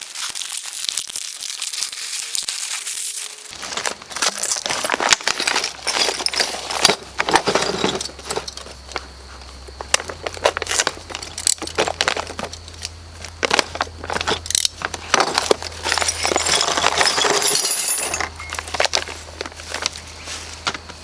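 Stiff plastic blister packaging being peeled off its cardboard backing, with a dense crackle for the first few seconds. After that come many scattered clicks and rustles as the plastic and the small metal hardware inside are handled and clink together.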